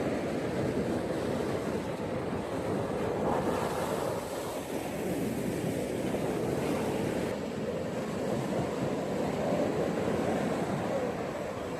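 Ocean waves washing onto a beach: a steady rushing surf that swells and eases gently, with no single breaker standing out.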